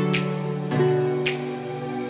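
Soft instrumental background music: sustained chords that change about every second, with a crisp percussion hit about once a second.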